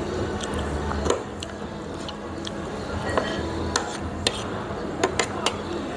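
Metal spoon and fork clinking against a ceramic dinner plate while eating: sharp single clicks, one about a second in and a quick run of them in the second half.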